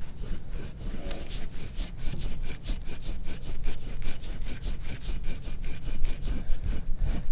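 A metal soft-tissue scraping tool drawn in quick, short strokes over the skin of a man's back, making a rasping scrape about five strokes a second. This is instrument-assisted scraping of the back muscles.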